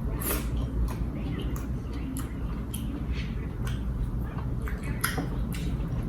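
Close-up eating sounds of a person chewing: irregular wet clicks and smacks of the mouth, over a steady low hum.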